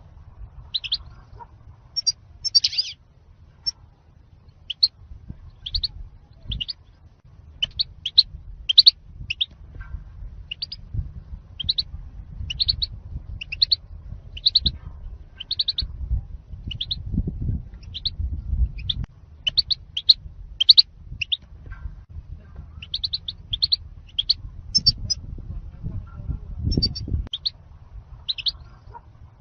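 European goldfinch calling, a long run of short, sharp high chirps at about one to two a second, over a low background rumble.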